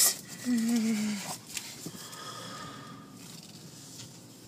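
Inside a car at the entrance of a car wash tunnel: a hiss cuts off right at the start, then a short wavering voice-like hum lasts under a second. After it comes low steady machinery noise, with a faint thin whine for about a second in the middle.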